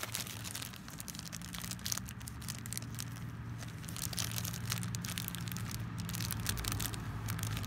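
Thin clear plastic parts bag crinkling and crackling as it is torn and pulled open by hand, a quick run of small crackles throughout.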